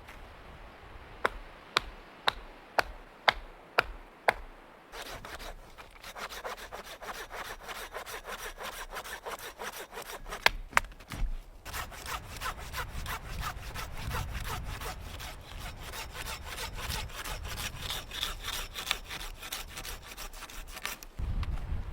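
Wood being cut with a hand saw in quick, even back-and-forth strokes, with a short pause about halfway through. Before the sawing starts there is a series of about seven sharp knocks on wood, roughly half a second apart.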